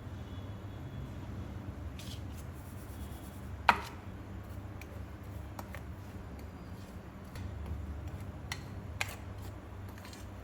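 Kitchen utensils clicking and knocking over a low steady hum, with one sharp clack a little under four seconds in and a few lighter taps later.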